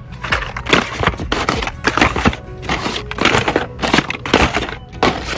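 Plastic blister packs of Hot Wheels die-cast cars crinkling and clacking as they are flipped through and shuffled in a cardboard display, a continuous run of irregular crackles.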